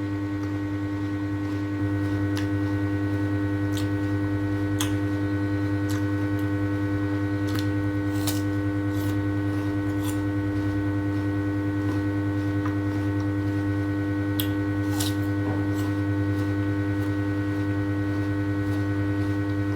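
A steady electrical hum throughout, with scattered short, sharp clicks and crunches from someone eating fruit close to the microphone.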